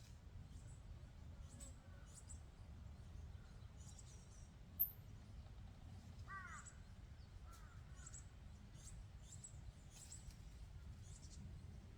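Faint birdsong: many short, high chirps repeating, a sharp louder high note about five seconds in, and a harsher, lower call about six and a half seconds in, over a low steady rumble.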